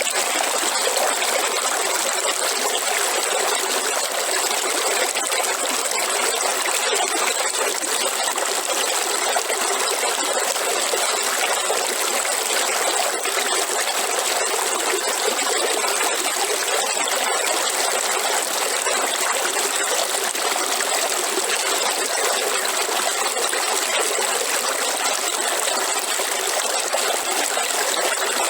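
River water running: a steady, unbroken rush of flowing water with fine splashing and trickling in it.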